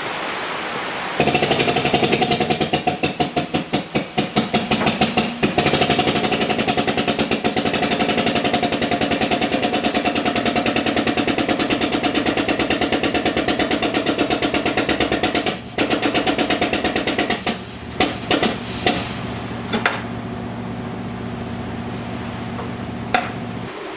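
Powered workshop press running while a new bearing is pressed into the Mazda 13B rotary engine part: a loud, fast, even mechanical pulsing with a steady pitched hum. It cuts off about two thirds of the way through, then comes back in a few short bursts before settling to a quieter steady hum.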